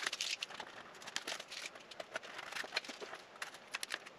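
Blue painter's tape crinkling and crackling as it is pressed down and trimmed with a razor blade over a motorcycle headlight, a quick irregular run of small clicks and crackles.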